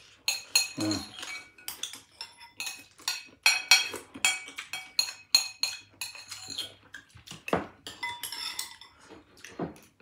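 Metal spoon clinking and scraping against a dish while someone eats, many quick irregular clinks a couple of times a second.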